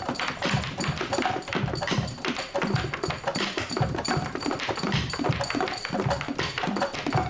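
Instrumental band music driven by a drum kit playing a steady, busy beat of repeated hits.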